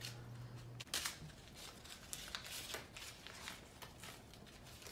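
Faint, intermittent crinkling and rustling of a crumpled sheet of paper being handled, with a few light ticks. A low steady hum stops abruptly with a click about a second in.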